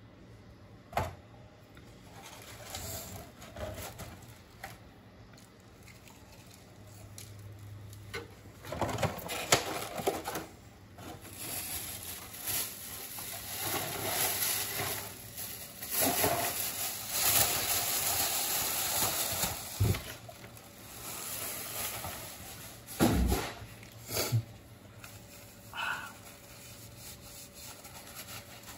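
Eating noises: irregular chewing and nibbling with scattered sharp clicks, busiest through the middle stretch.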